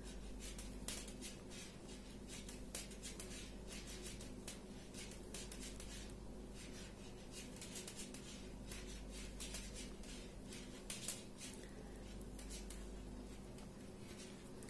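Knitting needles clicking faintly and irregularly, with the light rustle of yarn, as stitches are knitted by hand. A low steady hum runs underneath.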